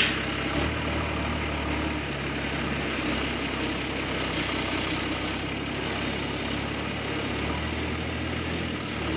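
Mercedes Unimog U1700L diesel engine running at low revs while the truck crawls over rough ground. A steady engine drone whose low note swells and eases a few times.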